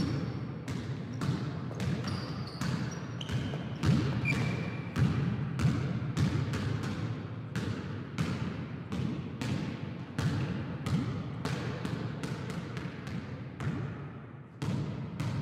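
A basketball being dribbled in a steady rhythm, a few bounces a second, with a few short, high sneaker squeaks in the first few seconds.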